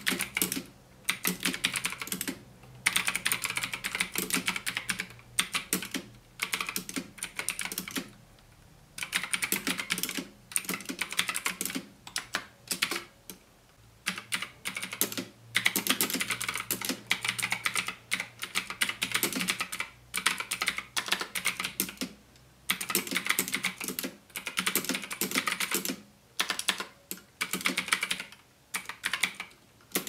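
Typing at normal speed on a Gigaware K28 mechanical keyboard with clicky blue switches: rapid key clicks in runs, broken by short pauses.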